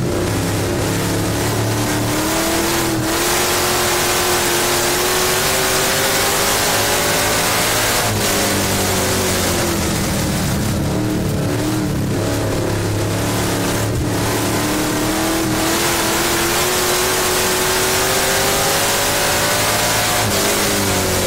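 Dirt-track stock car's engine at racing speed, heard from inside the cockpit over a steady rush of noise. The engine pitch climbs, drops about eight seconds in, climbs again and drops once more near the end.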